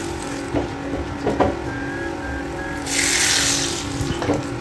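A wooden pestle knocking and scraping in a clay mortar of crushed chilli sambal. About three seconds in there is a short burst of hissing, as the hot frying oil sizzles on the sambal.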